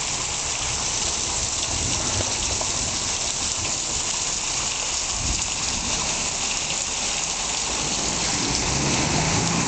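Heavy thunderstorm rain pouring down steadily in a dense, even hiss.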